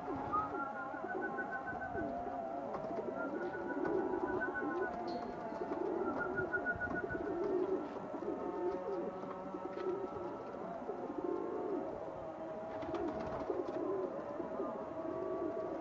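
Domestic pigeons cooing over and over, low and rounded, with a fast high trill from a smaller bird in the first several seconds.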